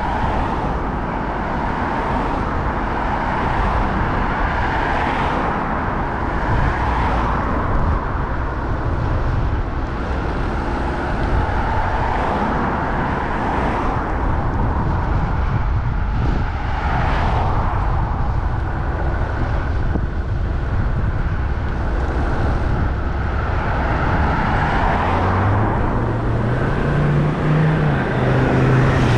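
Steady engine and road noise of a vehicle driving along a road. Near the end a low engine note rises and then falls.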